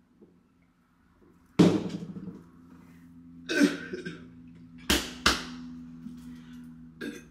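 A woman coughing into her fist several times after swallowing a drink, the first cough the loudest.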